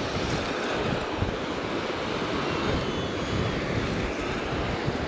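Wind buffeting the microphone over the steady wash of small surf breaking on a sandy beach.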